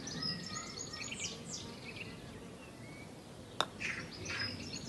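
Birds chirping and singing, with one sharp click about three and a half seconds in: a golf putter striking the ball.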